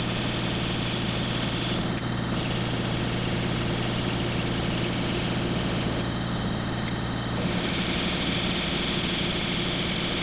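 Milling machine spindle running steadily while a spiral cutter bores into an aluminium block, the motor hum overlaid by a higher cutting hiss. The cutting hiss drops out briefly about six seconds in and returns a second and a half later, with a couple of sharp ticks along the way.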